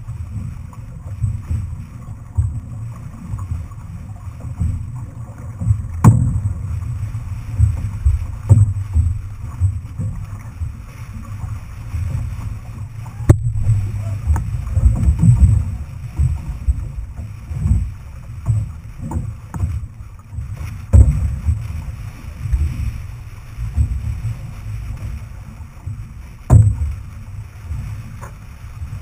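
Wind buffeting the microphone of a camera mounted on a moving outrigger canoe, a low rumble that rises and falls, over the wash of water along the hull. A few sharp knocks sound at intervals.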